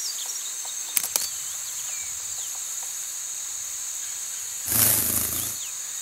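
Outdoor nature ambience: a steady high-pitched insect chorus with scattered short bird chirps. There are a couple of sharp clicks about a second in and a brief louder rustle near the end.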